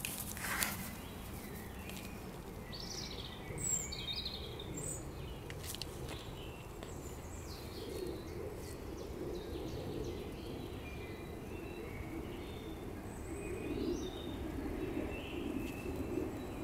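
Steady outdoor background noise with scattered short bird chirps. A single sharp knock comes about half a second in.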